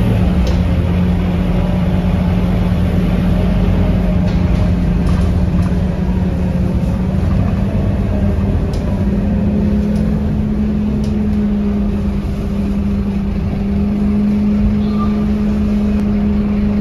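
Scania K230UB city bus's diesel engine running steadily, its note rising slightly about halfway through.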